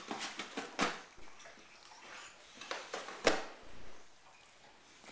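Cardboard box scraping and crinkling as a boxer dog moves about inside it, in two clusters of sharp scuffs, the loudest just past three seconds in.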